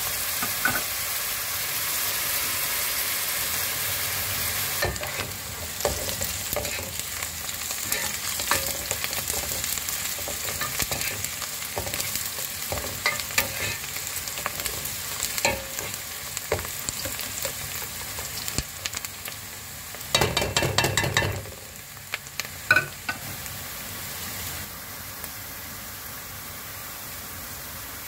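Diced onions sizzling in hot oil in a metal pot, with a spoon scraping and knocking against the pot as they are stirred. About two-thirds of the way through there is a short burst of quick scraping, and near the end only the steady sizzle remains.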